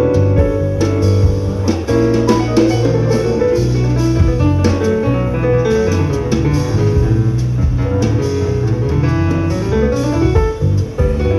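A jazz-fusion quartet playing live: a plucked electric bass line over keyboard and drum kit, at a steady loud level.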